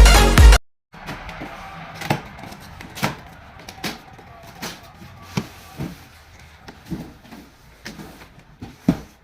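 Electronic dance music that cuts off abruptly about half a second in, then a row of irregular light knocks and clicks over faint room noise, roughly one every second, with a sharper knock near the end.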